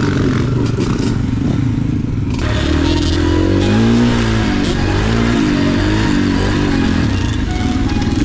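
Dirt bike engine revving up and down as it is ridden over a trail, its pitch rising and falling again and again, with clatter from the bike over rough ground.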